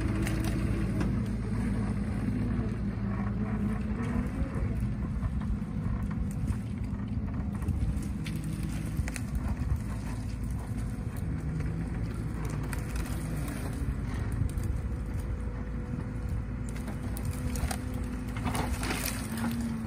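Compact excavator's diesel engine running steadily, its pitch shifting up and down as it carries a fallen tree in its bucket and thumb, with a few sharp cracks near the end.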